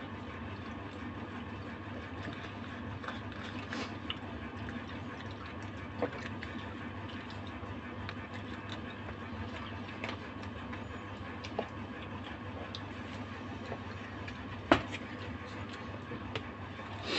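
Table noises of a meal: scattered small clicks and taps of hands on paper cups, food boxes and bowls, with one sharper knock near the end, over a steady low mechanical hum in the room.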